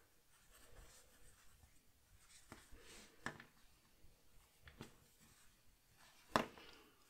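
Faint rustling of toy stuffing being pulled apart and pushed into a crocheted amigurumi toy by hand, with a few light taps and one sharper click near the end.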